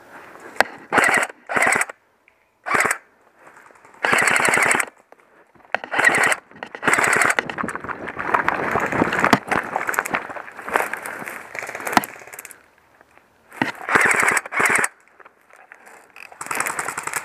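Airsoft electric guns firing on full auto, in rapid rattling bursts: several short bursts, then a long stretch of near-continuous fire about halfway through, then more short bursts near the end.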